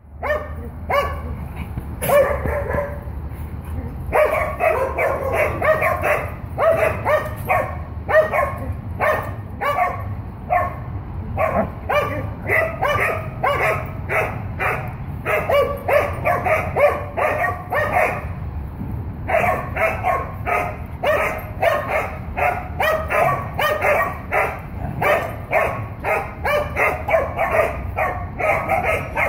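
Dog play-barking, rapid and insistent at about three barks a second, sparse at first and then continuous, with a short break about two thirds of the way in.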